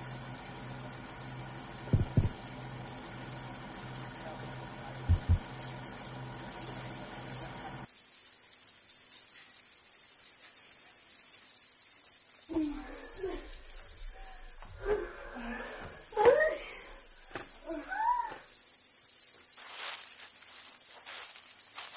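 Crickets chirring steadily at a high pitch. A low hum runs under them for the first eight seconds, and a few brief words are spoken near the middle.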